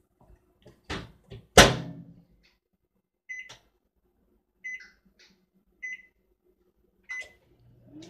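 Microwave oven door shut with a loud clunk about a second and a half in, after a lighter knock. Then four short, high keypad beeps as the cooking time is keyed in.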